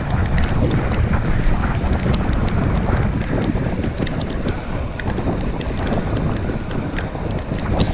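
Wind buffeting the microphone of a camera on a moving bicycle: a loud, steady, low rumble with scattered small ticks.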